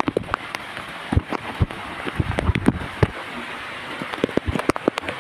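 Heavy rain drumming on a corrugated metal roof: a steady hiss crossed by many sharp, irregular taps and knocks.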